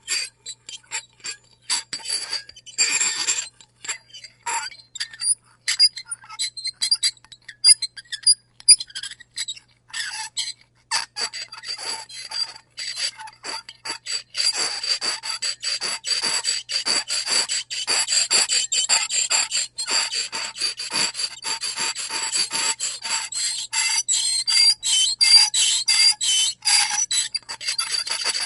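Fork scraping across a plate in many short, quick strokes with a high-pitched squeal. The strokes come in spaced-out bursts at first and run almost without a break from about halfway on.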